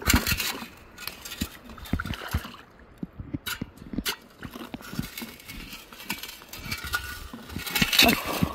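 Metal sand scoop digging into wet sand and gravel: irregular scrapes and knocks of stones against the scoop, loudest about eight seconds in.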